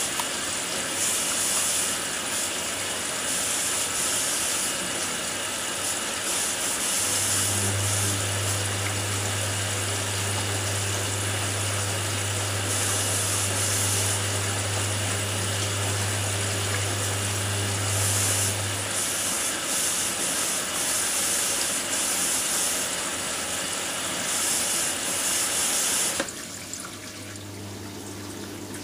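Hoover Nextra front-loading washing machine mid-cycle: a steady rush of water running into the machine, with the drum motor humming while the drum turns for about twelve seconds in the middle. The water cuts off suddenly near the end and a low hum from the drain pump starts.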